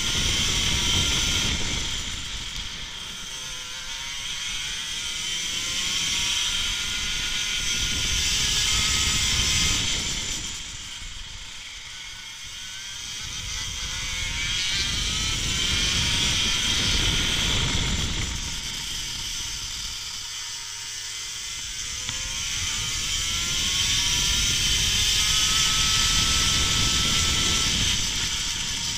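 Racing kart engine heard from onboard at speed, its pitch climbing steadily as it accelerates and falling away as it slows for the bends, several times over. Wind rushes over the microphone throughout.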